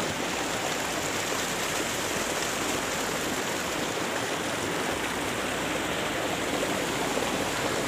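Mountain river rushing over boulders: a steady, unbroken rush of white water.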